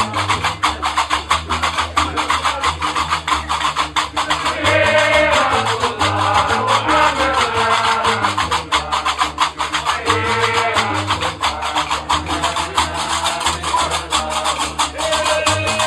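Algerian Diwan music: a guembri bass lute plucks a repeating low figure under a fast, dense clatter of iron castanets (qarqabou). Chanted vocal phrases come in at several points.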